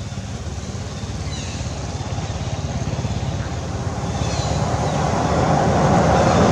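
A motor vehicle's engine and road noise, growing steadily louder as it approaches.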